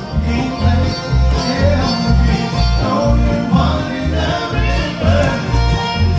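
Bluegrass band playing live: banjo and guitar picking over bass notes pulsing about twice a second.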